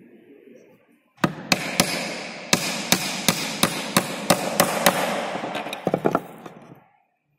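Hammer driving nails into wood: a quick run of about a dozen sharp blows, roughly three a second, starting about a second in, then a few lighter taps before it stops.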